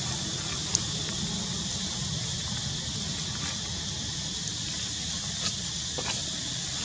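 Steady outdoor background noise: an even high hiss over a low rumble, with a few faint sharp clicks, the sharpest a little under a second in.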